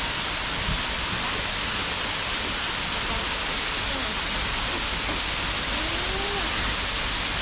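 Man-made waterfall pouring, a steady full rush of falling water.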